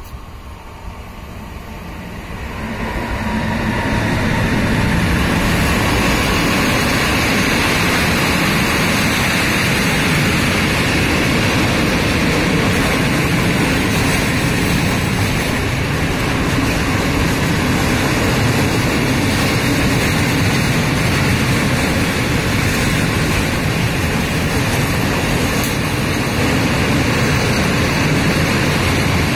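Freight train hauled by electric locomotive ET26-001 passing through a station: the noise swells over the first few seconds as the locomotive approaches and goes by, then holds as a steady rolling noise of the open freight wagons' wheels on the rails.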